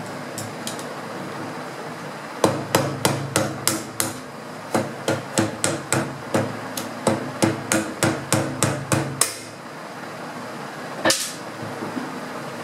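Hammer tapping out a retaining pin from a Hatsan break-barrel air rifle's action. There are about two dozen quick metallic taps, three or four a second, with a brief pause after the first few, then one more tap near the end.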